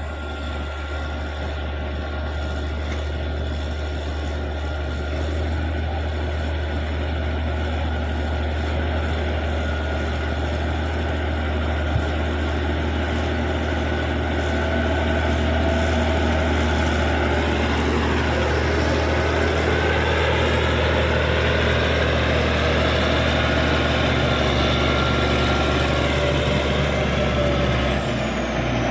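Caterpillar D6G bulldozer's six-cylinder diesel engine running under load with a steady deep drone, getting gradually louder; its pitch rises and falls a couple of times about two-thirds of the way through.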